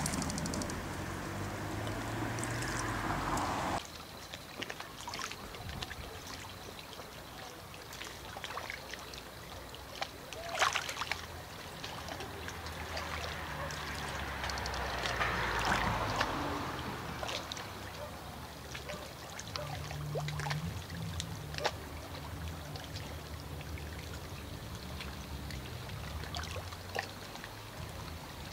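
Barn swallows calling with scattered short chirps and twitters over a low background of river water and a distant motor hum. A louder rumble cuts off abruptly about four seconds in.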